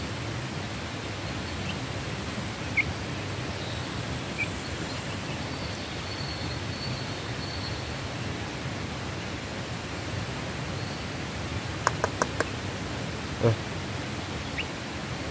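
Steady outdoor background hiss, with a few sharp little clicks of a young hen pecking grain from a bare palm, a quick run of four near the end followed by one louder knock.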